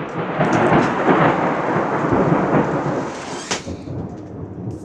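Loud thunder rumbling on after a close strike, with a sharp crack about three and a half seconds in, then slowly fading.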